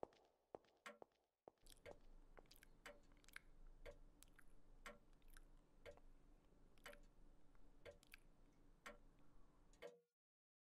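Faint, irregular clicks, roughly two a second, over a low room hum: a mobile phone being tapped. They stop suddenly near the end.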